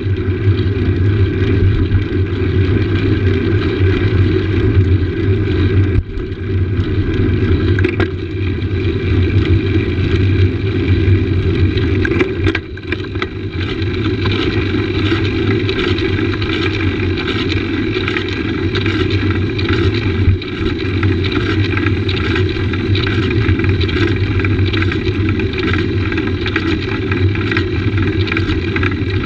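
Steady rushing noise of a road bike being ridden at speed: wind buffeting a handlebar-mounted camera's microphone over the tyres' rumble on the road, with a few brief dips.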